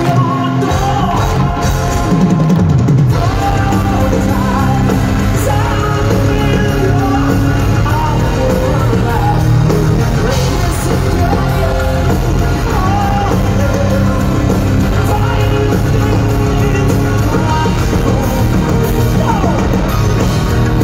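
Power-metal band playing live, heard from the crowd through the festival PA: drums, electric guitars, bass and keytar, loud and steady.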